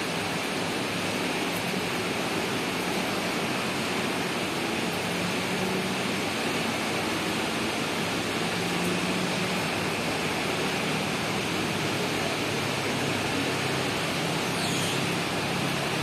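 Heavy rain falling in a steady, even hiss.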